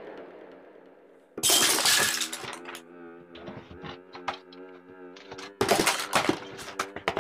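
Glass shattering about a second and a half in, with a ringing tail, then a second burst of crashes and knocks near the end as art supplies on a table are knocked over, over a sustained low music tone.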